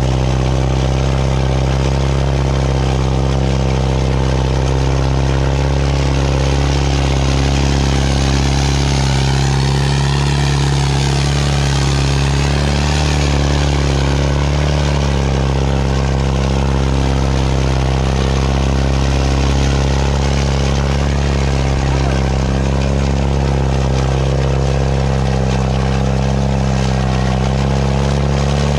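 Farmtrac 6055 tractor's diesel engine running loud and steady at constant revs while hauling an implement through sand.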